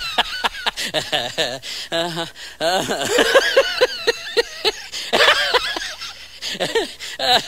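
A person laughing and chuckling, with a quick run of laughs about three seconds in.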